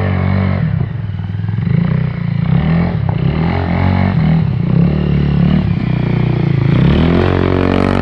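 Sport quad ATV engine revving up and down again and again under throttle as the quad churns through deep snow.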